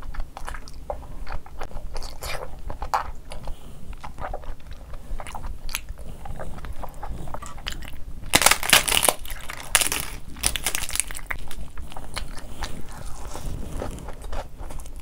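Close-miked wet chewing and smacking of a mouthful of curry and rice, in many short irregular strokes. About eight seconds in there is a louder crackling stretch while a piece of naan is handled.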